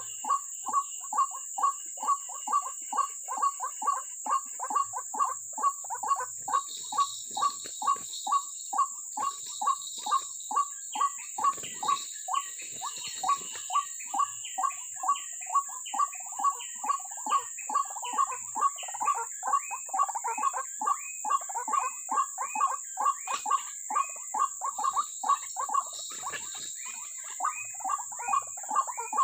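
White-breasted waterhen (ruak-ruak) call: a long, very even run of repeated notes, about two or three a second, the decoy call used to lure waterhens into snares. A second, higher series of notes joins about a third of the way in, over a steady high insect drone.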